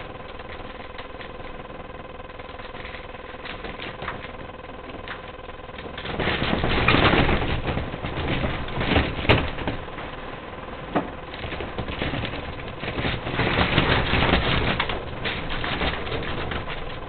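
Roller shutter slats rattling and clattering irregularly in the window frame, a defect in a new-build house. The rattling grows louder and denser about six seconds in.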